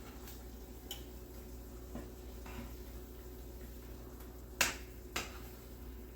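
A few light ticks, then two sharp clicks about half a second apart near the end, over a low steady hum: a cooking utensil knocking against the skillet as the chicken is turned in the garlic butter sauce.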